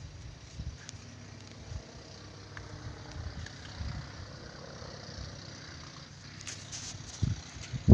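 Faint outdoor background noise with a few soft clicks, a brief high rustle near the end and a soft low thump just after it.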